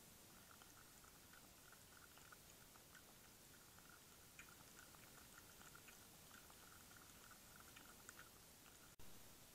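A cat eating right at a trail camera's microphone: faint, irregular chewing and crunching clicks over a steady hiss. A brief dropout and a click come near the end, where the camera's recording breaks.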